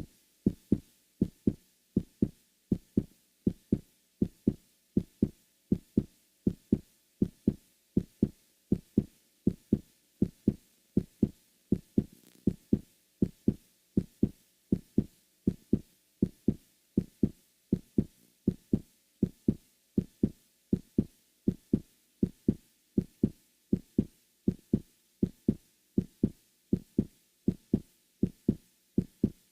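Heartbeat sound effect: steady pairs of low, dull thumps (lub-dub) at an even pace of roughly one beat a second.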